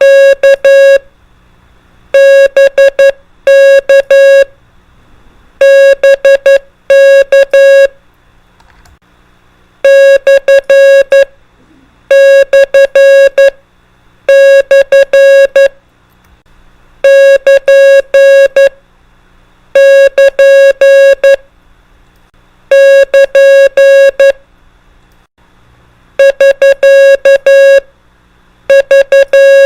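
Morse code (CW) sent as a single steady beeping tone, keyed into short dits and long dahs. The beeps come in separate groups every few seconds, each group a prosign or abbreviation.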